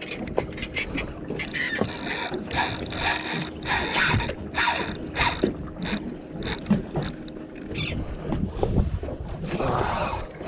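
Saltwater spinning reel cranked hard against a hooked cobia, its gears whirring with a faint steady hum and quick rasping strokes about two or three a second; the hum stops about eight seconds in.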